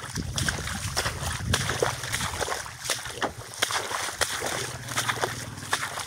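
Footsteps sloshing and splashing through a flooded, muddy rice paddy, a wet step about twice a second, over a steady hiss of rain.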